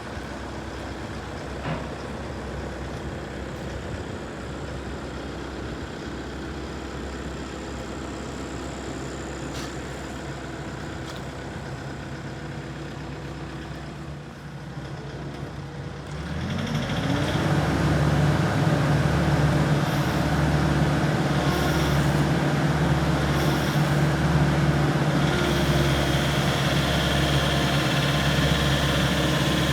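Volvo ECR88D excavator's diesel engine idling steadily, then, about sixteen seconds in, rising in pitch over about a second to a higher engine speed and running on there, louder.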